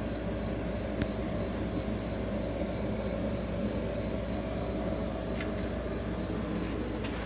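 A cricket chirping steadily, about three high chirps a second, over a steady low hum, with one faint click about a second in.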